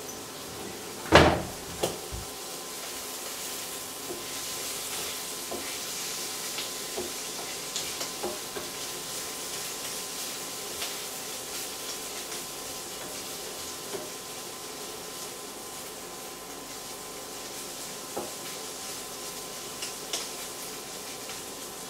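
White beans sizzling steadily in a de Buyer iron frying pan, stirred and scraped with a wooden spatula, with light taps of the spatula on the pan. A single sharp knock about a second in is the loudest sound.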